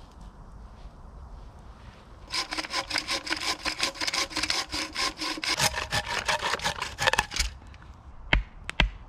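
Hand saw cutting through wood in quick, even back-and-forth strokes for about five seconds, the blade ringing through the strokes. A couple of sharp knocks follow near the end.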